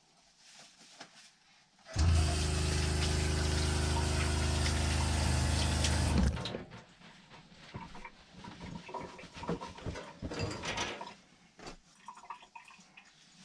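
Water pump humming while the faucet runs water into the sink. It starts suddenly about two seconds in and stops after about four seconds, followed by faint handling clicks.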